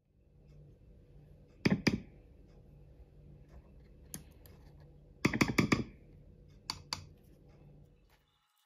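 Hands handling guitar wiring and control-cavity parts: sharp clicks and taps of small metal and plastic parts, in two loud clusters about two seconds in and again about five and a half seconds in, over a low steady hum.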